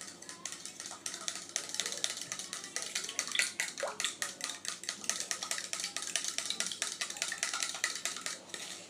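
A spoon stirring quickly in a plastic cup, clinking against the sides in a fast, steady run of ticks as a drink is mixed.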